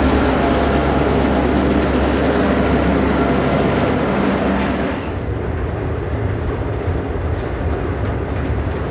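GP-9 diesel locomotives hauling a freight train past close by, their engines running with a steady rumble. About five seconds in this gives way to a quieter, duller rumble of a freight train rolling across a steel truss bridge farther off.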